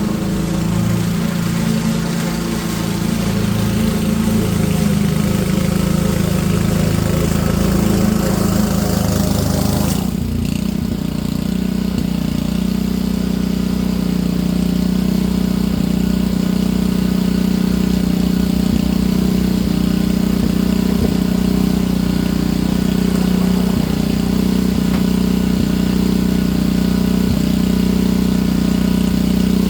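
Small petrol engine of garden power equipment running steadily at a constant speed. About ten seconds in, an airy rushing over the engine drops away suddenly, and the engine carries on with a steadier hum.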